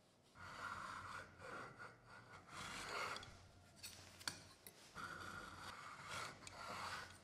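Steel scraping on steel and stone in several strokes about a second long: a height gauge slid across a granite surface plate, its scriber marking a line along the edge of a knife blade. A sharp click comes about four seconds in.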